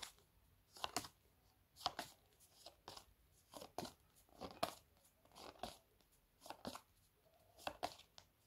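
A hand-held stack of stiff card flashcards being flipped one card at a time, a short papery swish about once a second as each card is slid off the pack.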